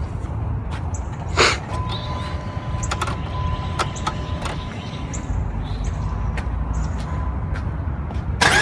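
Low rumble with scattered light clicks and knocks and a faint steady high tone for several seconds, then, right at the end, the Dodge Ram's 5.7-litre Hemi V8 cranking and starting up.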